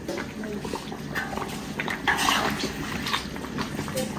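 Chicken in a thick galangal sauce simmering in a large steel wok while a metal utensil stirs it: wet slopping and bubbling with scattered small clicks.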